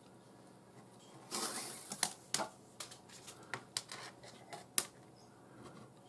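Nylon 550 paracord being handled and pulled through a clove-hitch loop: a soft rustle, then a run of light clicks and scuffs. It starts about a second in and stops about a second before the end.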